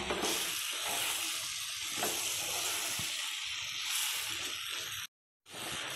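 Lemon pieces in hot oil with chilli powder, sizzling steadily in a non-stick pan while a wooden spatula stirs them with light scrapes. The sound drops out for a moment near the end.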